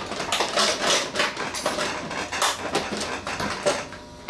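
Top cover of a Sony Vidimagic FP-60 projector cabinet being worked loose and lifted off the chassis: a run of irregular clacks, knocks and scrapes.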